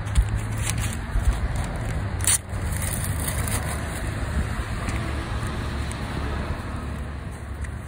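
Steady low rumble of vehicles running at a gas station, with a few light handling knocks and one sharp click about two and a half seconds in.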